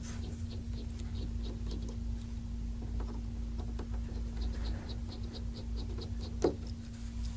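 Small Phillips screwdriver turning out the tiny screws of a smartphone's back cover: faint rapid ticks and scratches, with one louder click near the end, over a steady low hum.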